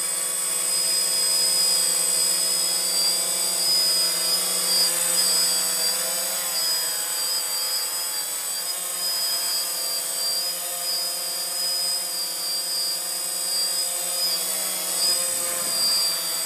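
DJI Phantom FC40 quadcopter hovering: a steady buzz from its four motors and propellers, with a high whine that wavers slightly in pitch as the motors adjust.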